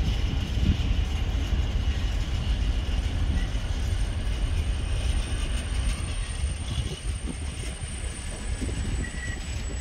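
A train running on the rails: a steady rumble of wheels and cars, with a faint high squeal from the wheels above it.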